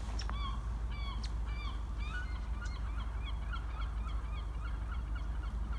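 A flock of geese honking, many short overlapping calls repeating a few times a second, over a steady low rumble.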